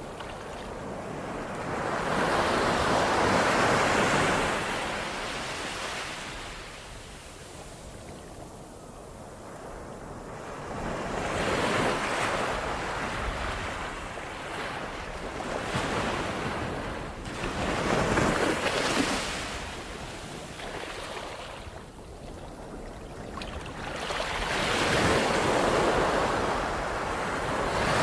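Ocean surf: waves breaking one after another, the rushing hiss swelling and ebbing every few seconds.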